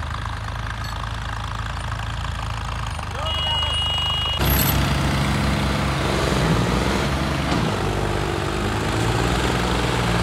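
John Deere tractor's diesel engine idling, then running much louder from about four and a half seconds in as it is revved up to lift the front wheels into a wheelie.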